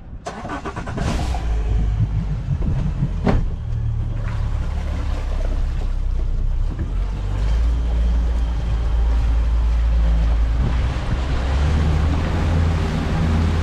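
Boat engine running steadily under way: a low drone that grows a little louder about halfway through, with a couple of sharp knocks in the first few seconds.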